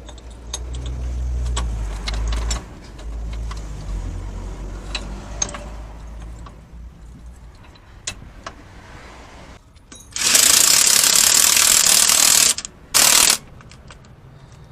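Scattered sharp metal clicks and knocks of hand tools working on a three-wheeler's gearbox, over a low rumble. Near the end come two loud hissing blasts of spray, one of about two seconds and then a short one.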